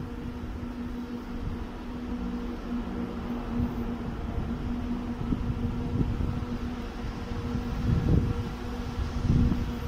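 Distant steady drone of a 2TE116 diesel locomotive's engine, holding one pitch. Low wind rumble on the microphone comes and goes, strongest near the end.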